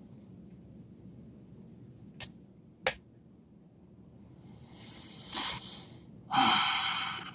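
Lock picking on a spool-pinned challenge lock: two sharp clicks about two seconds in, a little under a second apart, then two longer hissing sounds, the second louder.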